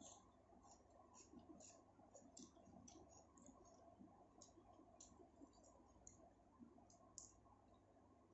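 Faint, irregular wet clicks and smacks of a person chewing food close to the microphone, about two a second.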